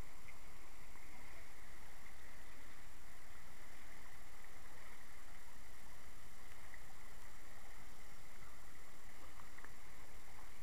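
Shallow creek water running over a gravel bed and riffles, a steady rushing babble.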